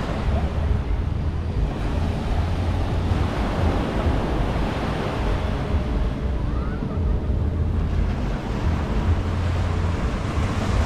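Surf washing onto the beach, the hiss of the waves surging and fading twice, with wind rumbling on the microphone.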